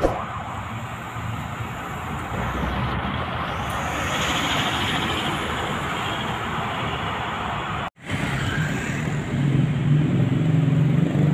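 City road traffic passing: a steady wash of tyre and engine noise. The sound cuts out abruptly for a moment about eight seconds in, and after that a deeper, steady engine hum of a nearby vehicle comes up under the traffic.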